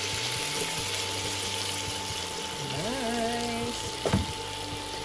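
Onion, garlic and pineapple sizzling steadily in a hot non-stick pan as the pineapple juice and chunks go in and are stirred with a spoon. A short hummed voice sounds about three seconds in, and a single knock, the loudest sound, comes about four seconds in.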